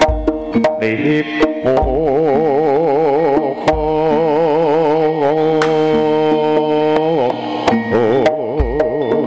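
Live Javanese jaranan music: a long-held melody line with a strongly wavering pitch over sharp drum strokes. A deep low boom sounds at the start, again about four seconds in and near the end.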